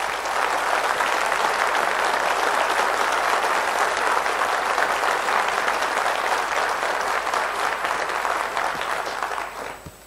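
Concert audience applauding, a dense patter of many hands clapping that fades away near the end.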